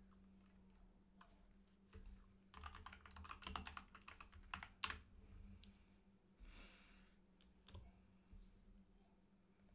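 Faint typing on a computer keyboard: a quick run of keystrokes starting about two and a half seconds in and lasting a couple of seconds, then a few scattered clicks.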